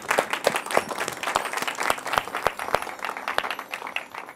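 Audience applauding, many hands clapping, the clapping thinning out near the end.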